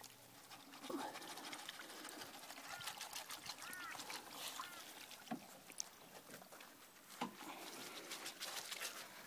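Faint clicks, crackles and rustles of a wet, sand-laden miner's moss mat being handled over a plastic tub, with a few low bumps. A few short arched bird calls sound in the background.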